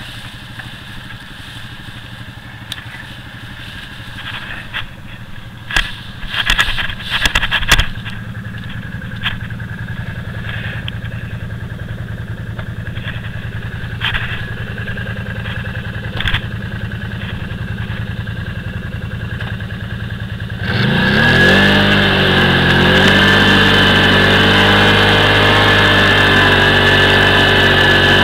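Can-Am Outlander 500 ATV's V-twin engine idling, with a few sharp knocks and clatter about six to eight seconds in. About twenty seconds in, the engine revs up and then holds at a steady, louder speed as the quad drives off.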